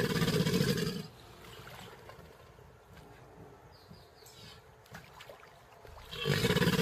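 Crocodilians growling: a low growl lasting about a second at the start and a shorter one near the end, with only faint sound between.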